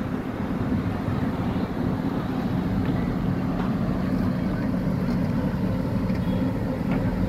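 Steady low rumbling hum with rough wind-like noise over it, unbroken throughout.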